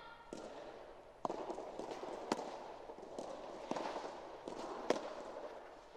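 Soft tennis serve and rally: racket strikes on the rubber soft-tennis ball and the ball's bounces on the court, a string of sharp pops roughly a second apart, the loudest a little after 2 s and near 5 s.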